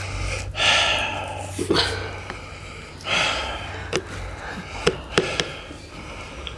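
A person gasping and breathing hard through the mouth from the burn of very spicy food, with two long hissing breaths about half a second and three seconds in. A few small clicks fall between them.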